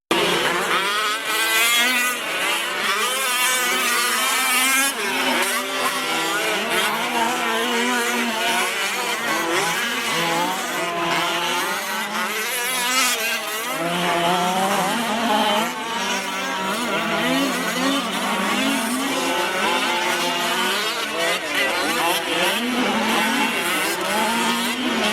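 Several Losi 5T 1/5-scale RC trucks' small two-stroke gas engines racing together, their overlapping buzzing pitches rising and falling constantly as they rev and let off around the track.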